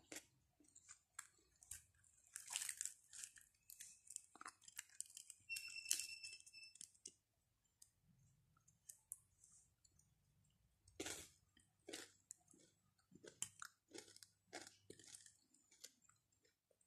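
Close-up chewing of flatbread, with soft crunches and scattered wet mouth clicks coming in irregular spurts. A short steady high tone sounds about six seconds in.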